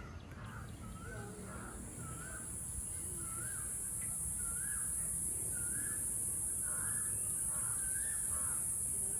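A bird calling over and over, short rising-and-falling calls less than a second apart, over a steady high-pitched hiss that comes in about half a second in and grows louder.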